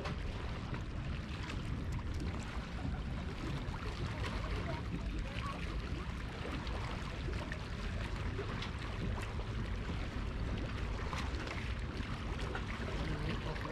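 Steady wind rumbling on the microphone over the wash of sea water, with no distinct events.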